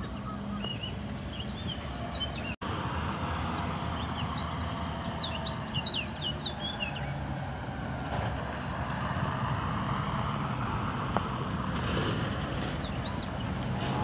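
Small songbirds chirping and twittering in quick, high, short calls, thickest in the first half and again briefly near the end, over a steady background noise.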